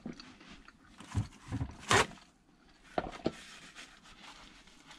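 A person chewing a bite of pizza, with a few short crunching and breathing noises scattered through; the loudest comes a little under two seconds in.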